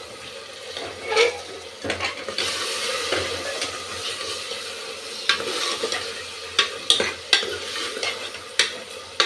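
Steel ladle stirring soaked black-eyed peas into frying masala in a pressure cooker: sizzling, which grows stronger about two seconds in, with scattered scrapes and clinks of the ladle against the pot.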